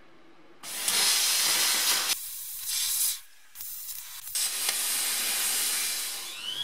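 Plasma cutter hissing as it cuts car-floor sheet steel. It starts about half a second in and breaks off and restarts twice, a stop-start cut that is put down to a poor ground connection. Near the end a small rotary tool whines as it spins up.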